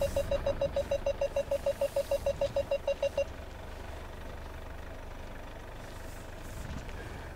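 A SsangYong Musso's parking sensor warning beeping rapidly and repeatedly, about six beeps a second, stopping about three seconds in. A low, steady engine hum continues underneath.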